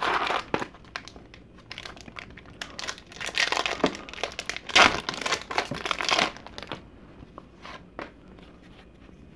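A foil-lined 1991 Leaf Studio baseball card pack wrapper being torn open and crinkled in the hands. It crackles in irregular bursts, loudest about five seconds in, and dies away after about six seconds as the cards come out.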